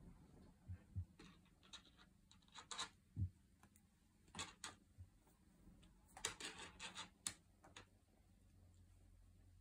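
Kittens playing on a fleece blanket: short, scattered bouts of soft scratching and rustling as they scrabble and pounce at a wand toy, with a few soft thumps, the busiest stretch a little past halfway.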